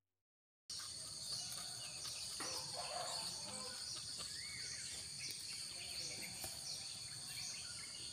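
Outdoor ambience: a steady, high-pitched insect drone with birds chirping now and then. It begins after a short moment of silence, with a few faint clicks.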